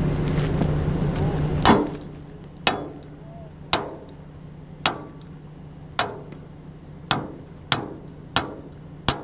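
Hammer blows on steel, metal on metal, as a rig part is knocked loose: about nine sharp strikes roughly a second apart, each with a short ringing clang, coming a little faster near the end. A steady low engine hum runs underneath, and a louder rumble fills the first second and a half.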